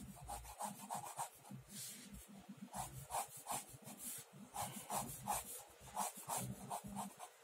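Pen nib scratching on paper in a run of short, quick sketching strokes, several a second.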